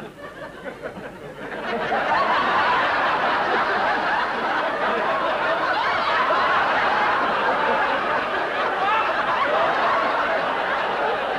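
Studio audience laughing, swelling up about a second and a half in and carrying on as a long, steady wave of laughter from many people.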